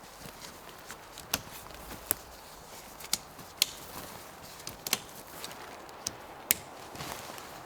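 A handful of sharp, irregular clicks and snaps, about six spread over several seconds, over a faint steady outdoor background.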